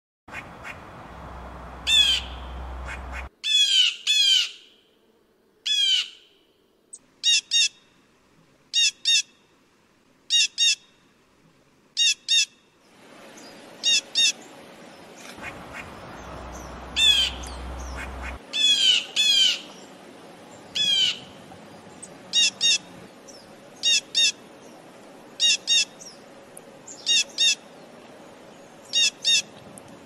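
Blue jay giving its harsh, loud 'jay' calls over and over, mostly in quick pairs about every second and a half, with bursts of longer down-slurred calls twice. A low rumble comes and goes underneath.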